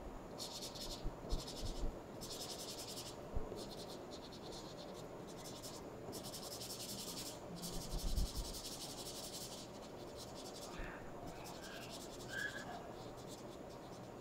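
Felt-tip marker scratching on paper in quick back-and-forth colouring strokes, in spells of a second or two with short pauses between. A few soft thumps come through, the loudest about eight seconds in.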